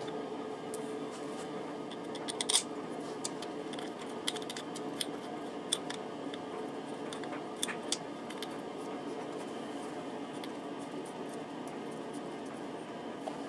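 Scattered small metallic clicks and scrapes of hands handling and fitting an oil filter up into the scooter engine's filter housing, the sharpest click about two and a half seconds in, over a steady background hum.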